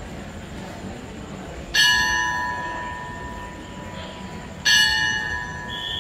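A metal bell struck twice, about three seconds apart, each strike ringing out and fading slowly. It is the station's departure bell, the signal that the standing train is about to leave.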